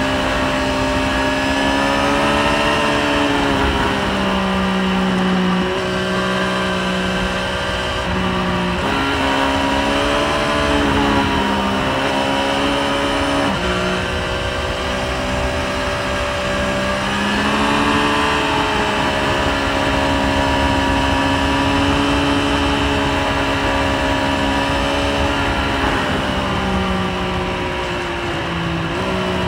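Triumph Street Triple 765 RS inline-three engine running at road speed, its note holding steady, then dropping and jumping abruptly several times as the throttle is rolled off and opened, over wind noise.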